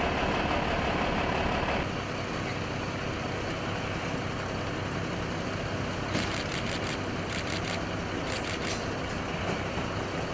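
Steady running of an idling vehicle engine, with a few short clicks and rattles about six to nine seconds in. The noise drops a little in level about two seconds in.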